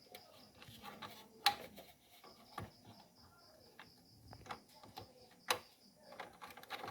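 Light, scattered clicks and taps of small computer parts being handled at a workbench, with two sharper clicks, one about a second and a half in and another near the end.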